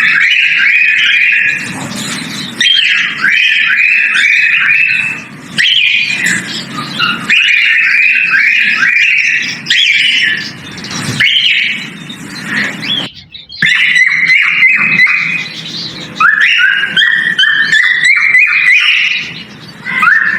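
Male cockatiel whistling its mating call: phrases of quick, clear whistled notes, repeated over and over with short breaks between phrases.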